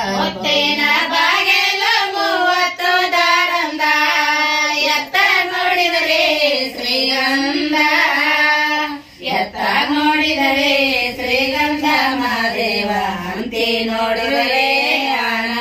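Women singing a Kannada devotional folk song to Mahadeva, unaccompanied, in long drawn-out wavering phrases, with a brief breath about nine seconds in.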